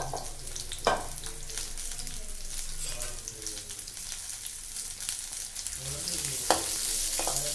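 Sliced onions frying in oil in a kadai, a steady sizzle and crackle that grows louder over the last couple of seconds as a steel ladle stirs them. Two sharp knocks stand out, about a second in and again near the end.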